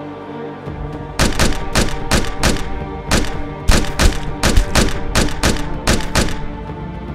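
Rapid string of handgun shots, about three a second, starting just over a second in and stopping near the end, each a sharp crack with a short ringing tail, over a steady music track.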